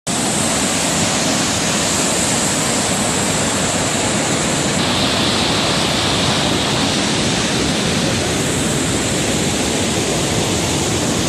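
Waterfall rushing: a loud, steady roar of falling water that starts abruptly and holds level, shifting slightly in tone about five seconds in.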